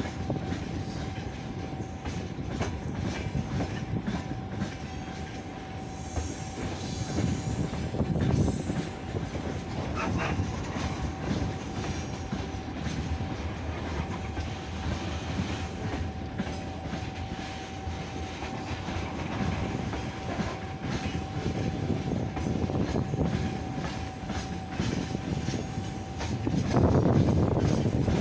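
Freight train wagons rolling past, wheels clattering over the rail joints with a steady thin whine held over the rumble. It grows louder near the end.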